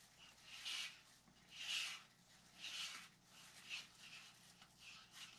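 Freshly mixed epoxy resin and hardener being stirred in a mixing container, the stirrer scraping the sides and bottom with a soft scrape about once a second. The stirring is slow, to mix the batch without whipping in air bubbles.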